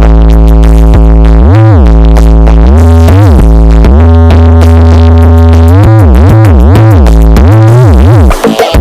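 Electronic dance music with a heavy bass synth whose notes slide down and back up again and again. It is played very loud through a carnival sound system as a sound check.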